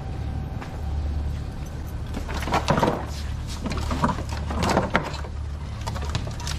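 A run of knocks and clatter, like hard objects being handled and set down, over a steady low hum. The knocks fall between about two and five and a half seconds in.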